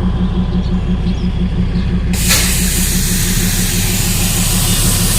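Darjeeling Himalayan Railway toy-train locomotive standing with its engine running in a steady pulsing rumble; about two seconds in, a loud hiss of released steam or air bursts out and keeps going.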